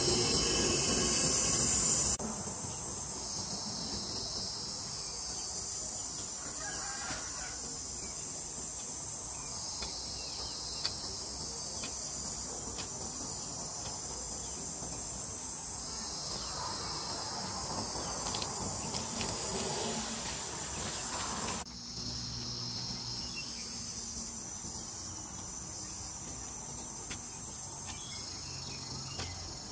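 A steady, high-pitched chorus of insects chirring, several tones layered together. It drops abruptly in level about two seconds in and changes again briefly near the twenty-two second mark.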